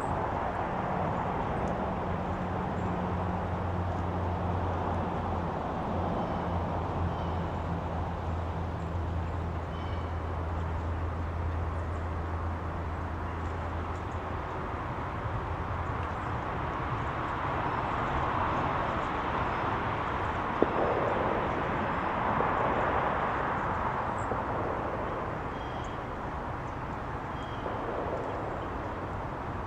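Outdoor ambience dominated by a steady rush of passing traffic that swells and fades, with a low engine hum through the first half. Faint, scattered bird chirps sit on top, and there is a single sharp click about twenty seconds in.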